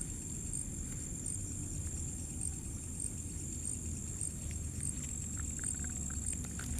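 Insects calling steadily: a continuous high buzz with short chirps repeating about every two-thirds of a second, over a low rumble.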